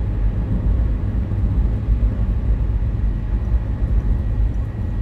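Steady low rumble of a car cruising at highway speed, heard from inside the cabin: tyre, road and engine noise.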